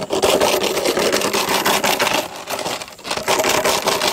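Plastic water bottle crinkling and crackling as it is squeezed and bitten, a loud, dense run of quick irregular crackles with brief dips.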